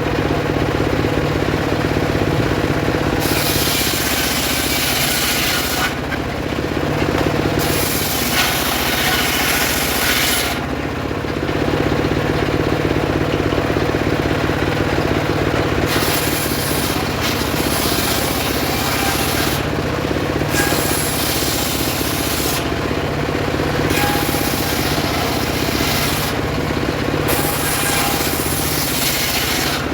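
Homemade circular saw running steadily, its blade ripping sengon wood in six separate passes of two to three seconds each, with the machine's steady hum between them.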